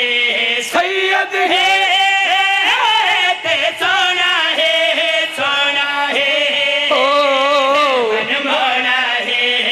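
Several men singing a devotional Punjabi qaseeda together into microphones, the voices carried over a loudspeaker system. The singing is melismatic, with long drawn-out notes and a long wavering held note about seven seconds in.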